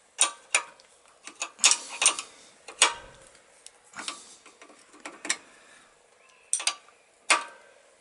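Steel spanners clinking against each other and against a copper brake pipe's union nut in about a dozen irregular sharp clicks while the nut is nipped up, one spanner holding the fitting below.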